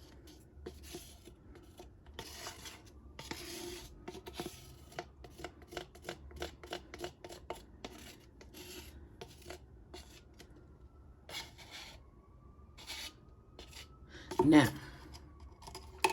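Quick, irregular scraping strokes, as of a stir stick scraping leftover ResinCrete out of a mixing cup; the strokes come thickest in the middle.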